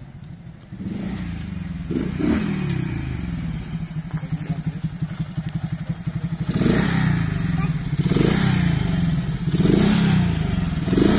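Small motorcycle engine running as it rides up close, growing louder from about a second in, with several short swells of throttle.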